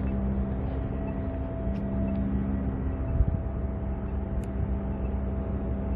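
Road traffic: a steady engine drone with a few constant tones, and a brief low thump about three seconds in.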